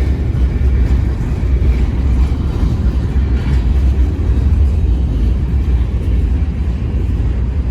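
Freight train rolling past close by: a loud, steady low rumble of cars on the rails.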